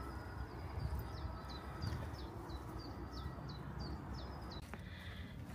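A songbird singing a quick run of about a dozen short, high repeated notes, each dropping in pitch at its end, about three a second, over a low outdoor rumble.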